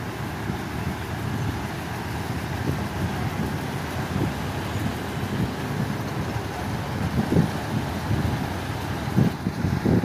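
Heavy earthmoving machinery running: a steady low engine rumble from an excavator and dump trucks, with a few short low thuds about seven seconds in and again near the end.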